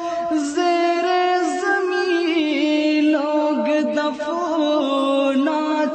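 Background song: a single voice singing a long, drawn-out melodic passage without clear words, part of an Urdu devotional song about death.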